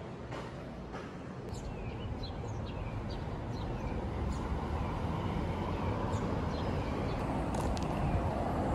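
Vehicle rumble that grows slowly louder, with repeated short, falling bird chirps over it.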